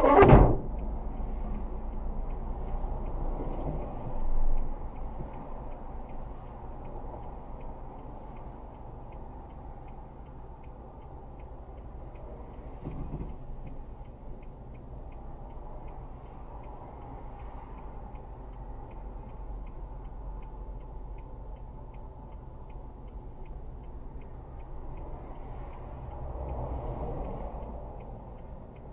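Car indicator flasher ticking steadily inside the cabin over low engine and road noise, which grows quieter after a few seconds. A sharp, loud bang comes right at the start.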